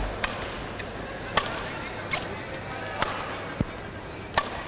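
Badminton rally: about five sharp racket strikes on the shuttlecock, roughly one a second, over steady background noise of the hall.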